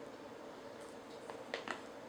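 Three light, sharp clicks a little past a second in, from handling during an unboxing, over a faint steady hum.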